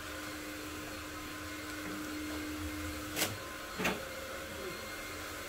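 Shopping cart pushed along a supermarket aisle: a steady rolling hum with a faint tone that stops about three seconds in, then two short knocks just over half a second apart.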